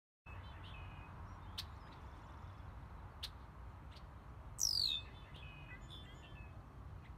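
Wild songbirds chirping and calling, with a few sharp clicks and one loud call that sweeps downward in pitch about halfway through, over a low steady rumble.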